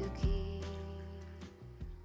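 Background music ending, its last chord ringing and fading away.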